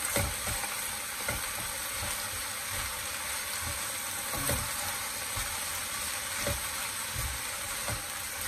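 Spinach sizzling as it is stir-fried in a stone-coated frying pan, with a spatula scraping and knocking against the pan every second or two as the leaves are tossed.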